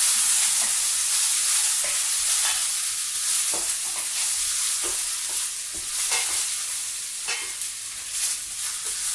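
Diced onion sizzling in butter and olive oil in a stainless steel frying pan: a steady hiss, with a wooden spatula scraping and knocking against the pan every second or so as it is stirred. The sizzle grows a little quieter toward the end.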